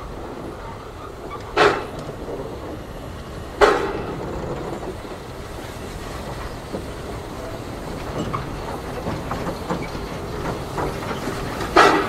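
Narrow-gauge steam tank locomotive No.8 'Llywelyn', a 2-6-2T, running slowly as it approaches and passes close by. Its wheels click over the rail joints, and three sharp exhaust chuffs come about two seconds apart early on and once more near the end.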